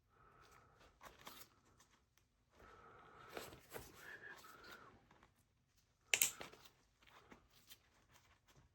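Quiet handling and rustling of a jacket's fabric and zipper, with one sharp snip about six seconds in as the excess is cut off.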